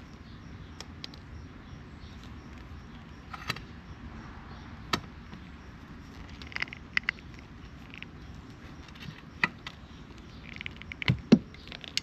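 Cable cutters working the insulation off the end of a 6-gauge battery cable: irregular small sharp clicks and snips over faint background noise, the loudest near the end.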